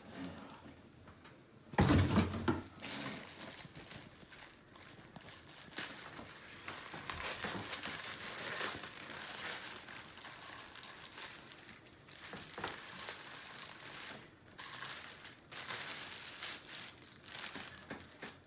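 Packaging crinkling and rustling as it is handled and pulled open, with a loud burst of crumpling about two seconds in, then irregular rustling.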